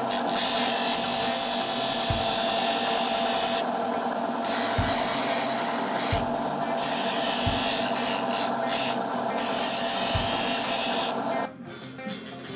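Bench disc sander running, with a small metal piece held in locking pliers ground against the sanding disc. The grinding hiss eases three times for a moment as the piece comes off the disc, then cuts off near the end.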